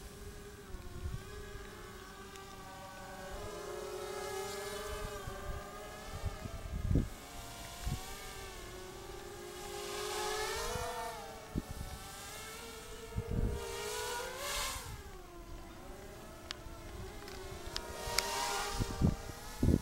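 QAV250 racing quadcopter's brushless motors whining in flight, several pitches rising and falling together as it manoeuvres, loudest about ten and fourteen seconds in.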